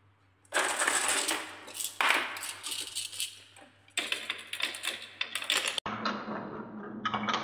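Glass marbles rolling and clattering down a wooden marble-run track in fast, dense clicks. They start suddenly about half a second in, with fresh surges about two and four seconds in.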